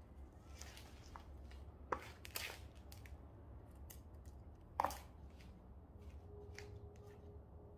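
Hands pressing potting soil down firmly around a repotted foxglove in a plastic pot and adding soil from a plastic scoop: soft scraping with a few sharp knocks, the loudest a little before five seconds in.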